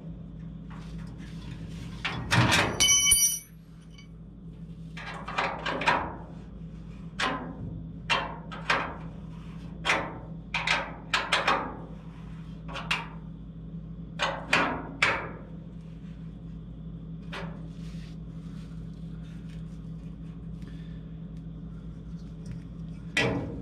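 Hand wrench clinking and knocking against steel bolts and brackets while bolts are snugged up, in irregular clusters of short sharp hits, with one louder ringing metal clank about three seconds in. A steady low hum runs underneath.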